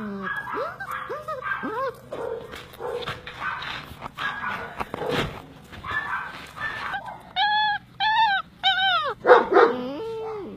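Dogs whimpering and yipping in short cries that rise and fall in pitch, with three loud, high yelps about three-quarters of the way through.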